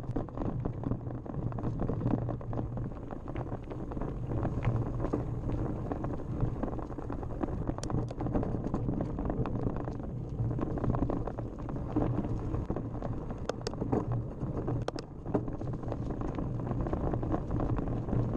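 Mountain bike descending a rough dirt trail: a steady rumble and rattle of tyres, frame and chain shaking over the ground, with a few sharp clicks and knocks along the way.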